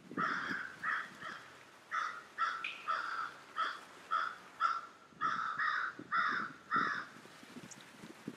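A crow cawing over and over, about two caws a second, in a long series that stops about seven seconds in.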